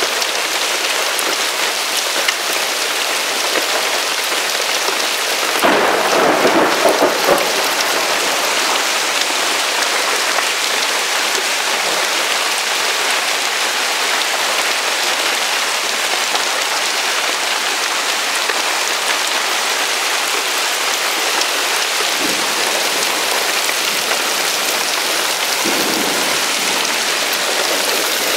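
Heavy hail falling with rain: large hailstones, about 4 to 5 cm across, pelting down in a dense, steady din. It swells louder and deeper about six seconds in for a second or two.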